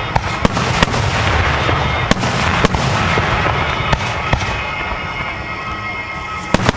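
Aerial fireworks display: irregular sharp bangs and pops from bursting shells over a continuous low rumble. The bangs thin out about five seconds in, then two come close together near the end.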